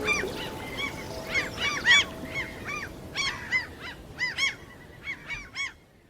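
A flock of gulls calling: many short, rising-and-falling honking cries in quick, irregular succession, fading out near the end.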